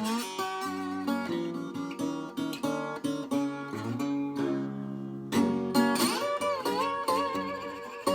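Circa-1936 Kalamazoo KG-14 flat-top acoustic guitar played in open Spanish tuning slacked down a couple of steps: a continuous run of plucked notes and chords, some of the notes wavering in pitch.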